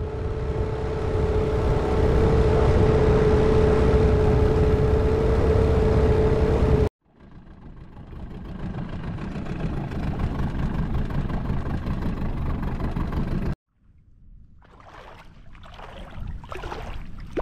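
Outboard motor pushing an inflatable dinghy along at steady speed: a deep rumble with a steady hum. It cuts off suddenly after about seven seconds, and the motor carries on quieter and rougher. A second abrupt cut, well past halfway, leaves only quieter, uneven noise.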